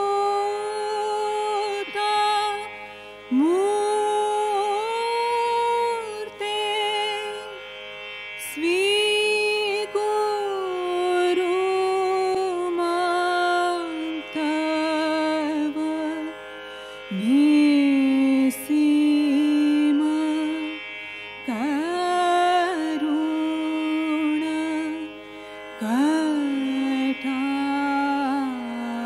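Carnatic-style devotional aarti music: one melodic line of long held notes with slides and ornaments, carried over a steady drone.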